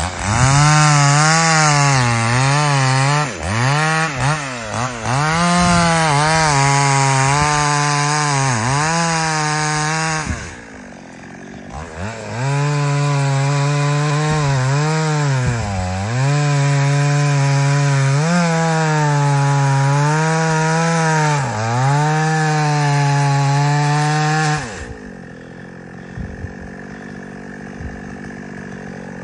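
Two-stroke chainsaw cutting through wood at full throttle, its engine note dipping again and again as the chain bogs down in the cut. The revs fall away briefly about ten seconds in, pick back up, and drop to a much quieter running sound near the end.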